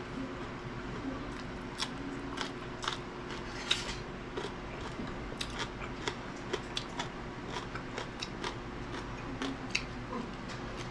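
Someone biting and chewing raw green vegetables close to the microphone: a string of short, crisp, irregular crunches over a faint steady hum.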